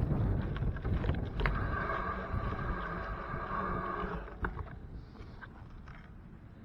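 Wind rushing over the microphone during a bike ride, with a steady high-pitched squeal lasting about three seconds in the middle; after it the wind noise drops away and it goes much quieter.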